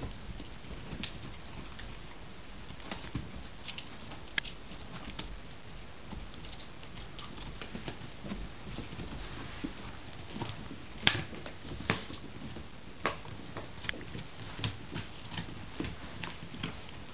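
A dog gnawing a chew bone: irregular sharp clicks and cracks of teeth on the bone, coming closer together about ten seconds in, the loudest crack about eleven seconds in.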